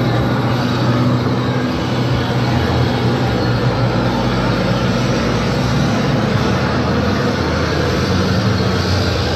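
A vehicle engine runs steadily at low speed close by, with a low, even hum, as the vehicle under the mock tank rolls slowly along.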